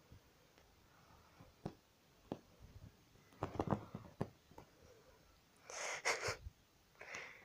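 Soft knocks and bumps of a cat tussling with a plush toy on bedding, followed near the end by two short breathy bursts.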